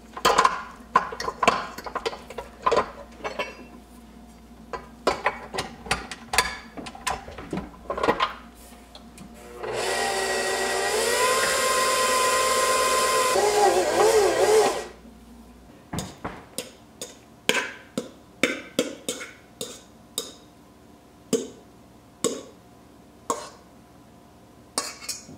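KitchenAid tilt-head stand mixer running for about five seconds in the middle, its motor whine rising as it comes up to speed, mixing bread dough in a steel bowl. Before and after it, clicks and knocks of the steel bowl being set in place and handled, and the dough being scraped out.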